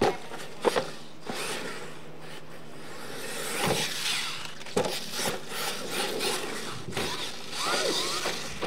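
A radio-controlled monster truck's motor whining up and down as it accelerates over loose dirt, its tyres spraying dirt, with several sharp thumps and clatters as it hits ramps and lands from jumps.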